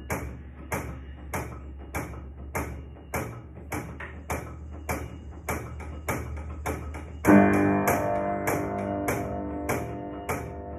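Old, long-untuned upright player piano played in a steady pulse of short, dull knocks, two to three a second, each with a sharp click from the action and little ringing note. About seven seconds in, a loud chord is struck and rings on under the continuing pulse.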